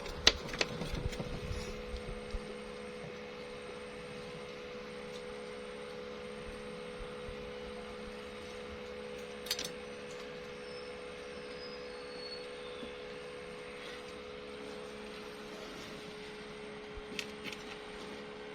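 A steady hum made of several held tones, with a few clicks at the start and one sharp click about halfway through.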